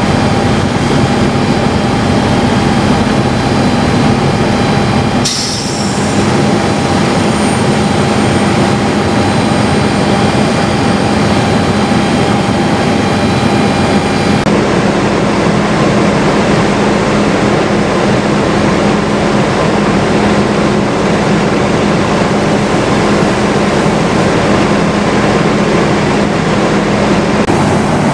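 Fire engine pump running with a steady loud drone, mixed with the rushing of a fire hose spraying water onto a burning pickup truck.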